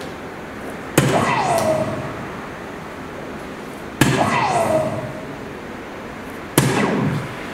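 Three darts striking an electronic soft-tip dartboard, about a second in, four seconds in and near the end, each hit setting off the machine's short sound effect with a falling tone. The first two hits register bulls.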